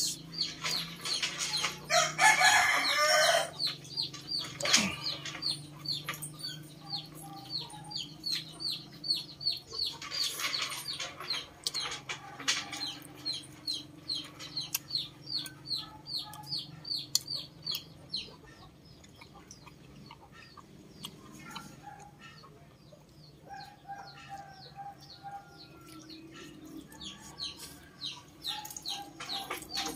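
Chickens calling: a fast run of short, high peeping chirps, several a second, with louder rooster or hen calls about two seconds in and again around ten and twelve seconds in. The chirping thins out after about eighteen seconds, leaving fainter calls and the mouth sounds of someone eating by hand.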